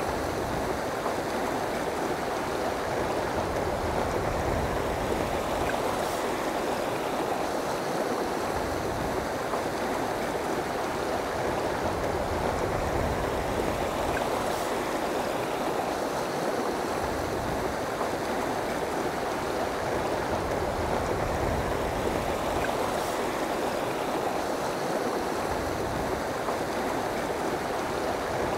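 Rushing river water over rocks and rapids: a steady, even rush with no breaks.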